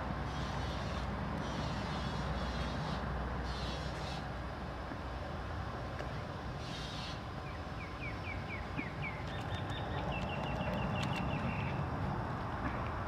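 Steady outdoor background rumble with a bird calling: a quick run of about six chirps past the middle, then a rapid trill a second or so later. Several short hissy bursts come in the first half.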